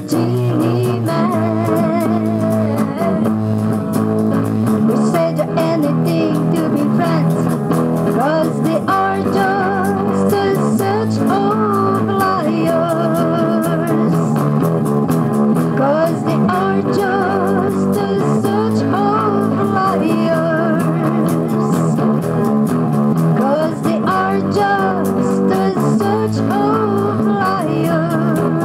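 A song with electric guitar and bass, the lead playing wavering, bending melody lines over a steady backing.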